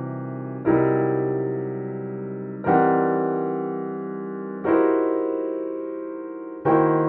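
Piano playing a series of dissonant six-note chords, each built from two stacked triads, struck about every two seconds and left to ring and fade; four new chords sound, the first under a second in.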